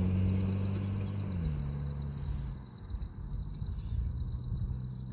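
A low engine hum drops in pitch about a second and a half in, then fades and goes on more faintly. A cricket trills steadily at a high pitch throughout.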